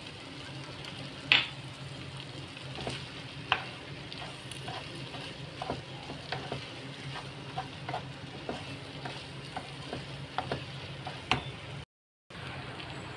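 Mee goreng noodles sizzling in a wok as they are tossed with a spatula: a steady frying hiss over a low hum, with scattered sharp knocks of the spatula against the pan, the loudest about a second in. The sound cuts out for a moment near the end.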